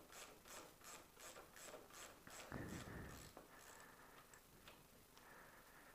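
Faint metallic clicking and rubbing as a motorcycle front axle is worked out of the fork and wheel hub: even clicks about four a second for the first few seconds, a dull knock about two and a half seconds in, then a faint scrape of the axle sliding out.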